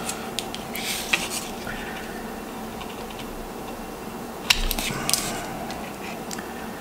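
Hand wire strippers working on 22-gauge solid-core wire: scattered small metallic clicks and handling rustles, with a sharper click and clatter about four and a half seconds in as the insulation is stripped.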